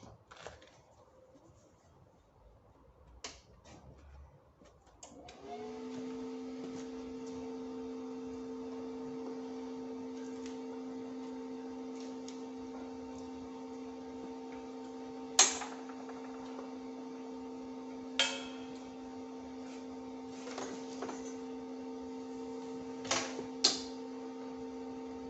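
Welding machine switched on about five seconds in and humming steadily, with a few sharp clicks over the hum, one near the middle and two close together near the end.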